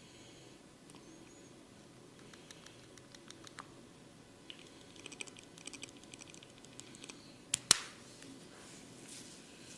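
A barber's hands at work in a head and ear massage: small quick clicks and taps that grow busier, then two sharp cracks close together near the end.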